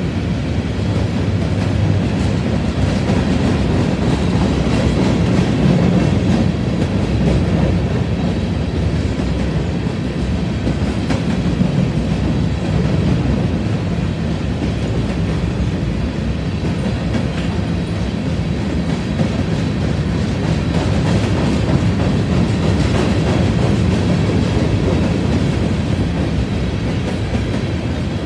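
Covered hopper cars of a freight grain train rolling past: a steady rumble of steel wheels on the rails.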